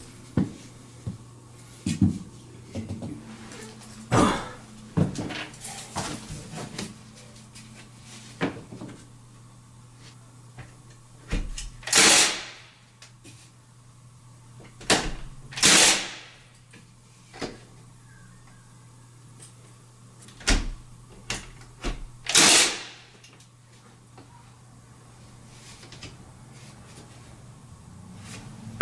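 A cordless, battery-powered Milwaukee 16-gauge finish nailer fires nails into window trim. Three loud shots come a few seconds apart, about twelve, sixteen and twenty-two seconds in, each a sharp hit that fades quickly. Lighter knocks and taps from the wood trim being handled and set against the wall come in between.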